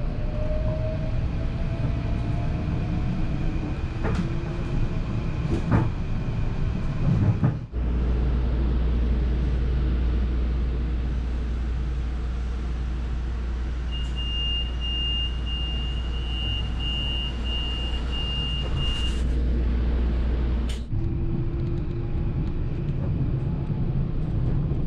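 Electric commuter train heard from inside the car. The running rumble carries a gliding whine and a few sharp clicks. After about 8 s it changes to a steady low hum while the car stands, with a quick series of high beeps for about five seconds, the door-closing warning. Near the end the running noise returns.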